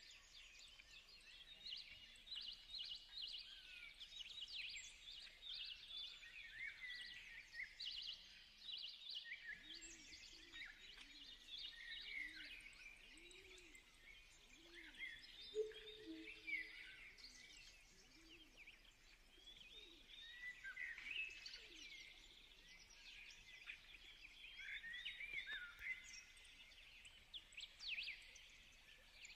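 Faint birds chirping continuously, many short quick calls, with a lower call repeating about once a second for several seconds in the middle.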